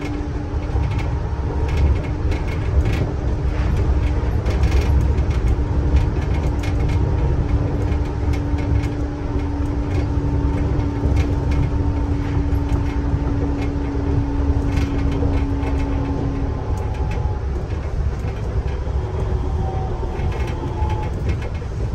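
Interior running noise of a Nippori-Toneri Liner, a rubber-tyred automated guideway train, travelling along its concrete guideway: a steady low rumble with light clicks here and there. A steady hum runs under it and stops about three-quarters of the way through.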